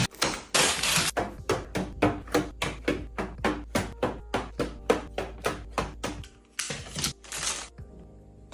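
A quick run of light taps and clicks, about three or four a second, as items are set down and arranged one after another, with a couple of short bursts of rustling or scraping.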